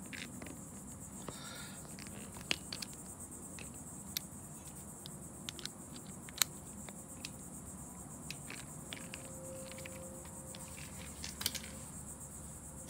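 Sparse light metallic clicks and taps of a screwdriver tightening the screws that lock down the ignition points plate on a Honda 305 Dream, the loudest about six seconds in. A steady high-pitched buzz runs underneath.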